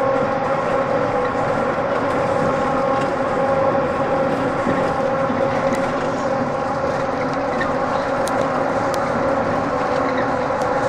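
MIA Mover automated people-mover train running along its elevated guideway, heard from inside the car. A steady ride rumble carries a constant whine in several tones.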